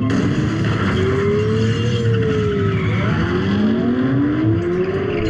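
Car-chase sound from an action film's soundtrack: vehicle engines revving, their pitch sliding up and down, over a noisy rush.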